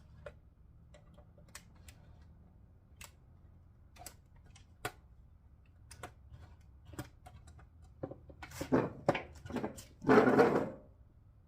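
Hand work on a car dashboard's plastic radio mounting: scattered light clicks of a screwdriver and plastic parts, then from about eight seconds in a run of louder scraping and rubbing, the loudest lasting under a second near the end.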